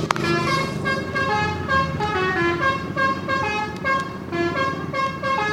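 Telolet horn on a bus, a multi-tone musical horn, playing a quick tune of short notes that step up and down in pitch, a few notes a second.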